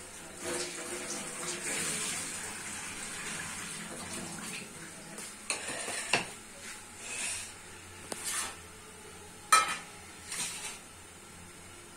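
Water running from a kitchen tap for a few seconds while tomatoes are rinsed, then the clink and clatter of dishes and a plate set down on the counter, with one sharp clink about nine and a half seconds in.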